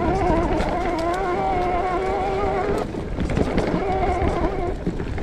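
Mountain bike disc brakes howling under braking, a wavering moaning tone held for almost three seconds, released briefly, then held again for about a second and a half, over the rumble of tyres on the trail.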